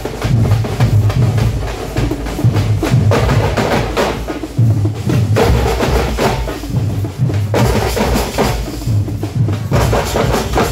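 A group of tamate frame drums beaten with sticks, playing a loud, fast, driving rhythm: deep booming beats under sharp stick strokes.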